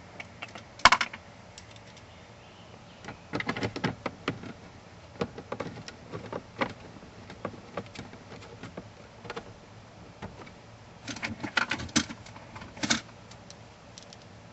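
Plastic dashboard trim around a Nissan Maxima's gauge cluster being handled and worked into place by hand: scattered clicks and light knocks. One sharp knock comes about a second in, with busier runs of clicks around four seconds and again near the end.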